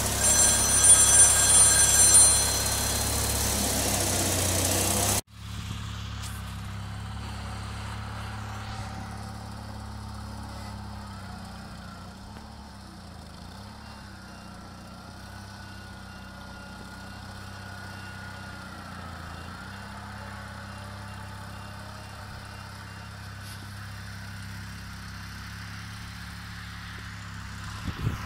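Bolens garden tractor engine running, with a high-pitched whine over it for the first two seconds or so. About five seconds in the sound cuts suddenly to a quieter, steady low engine hum.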